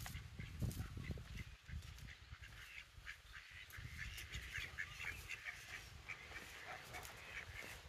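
Mallard ducks quacking in a scattered series of short calls, with a low rumble underneath.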